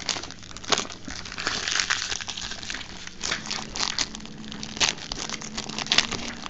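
Foil trading-card pack wrappers crinkling in irregular crackles as hands handle and open baseball card packs.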